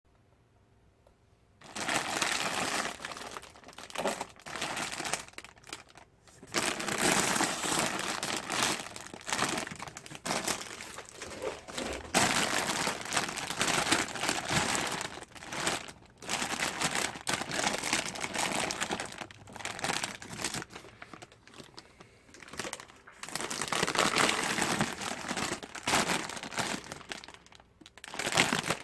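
Crinkling and rustling of a plastic instant-ramen wrapper being handled and opened, in irregular bouts with short pauses, starting about a second and a half in.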